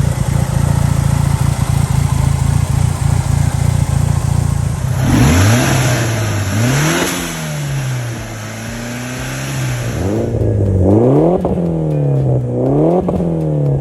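Mitsubishi Lancer Evolution 6.5 Tommi Makinen Edition's turbocharged four-cylinder engine, running steadily for a few seconds and then revved. In the last few seconds it is blipped repeatedly, rising and falling about once a second.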